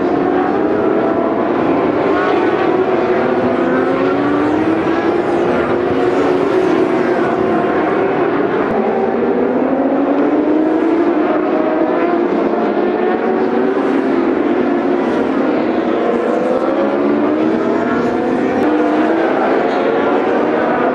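Endurance racing superbike engines revving hard, several at once, their pitch climbing through each gear and dropping back at shifts and on braking as the bikes race past.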